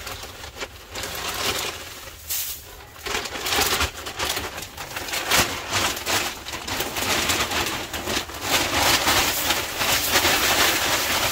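Crunching and rustling of wood-chip bedding and icy snow being worked by hand, a dense run of scrapes and crackles that gets busier and louder in the second half.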